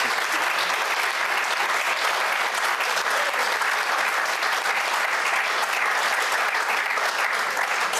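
A seated audience applauding with steady, sustained clapping.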